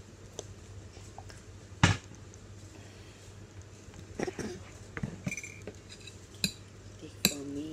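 A child's metal-tined fork tapping and scraping against a plastic bowl of spaghetti: a handful of sharp separate clicks, the loudest just under two seconds in and a cluster in the later half.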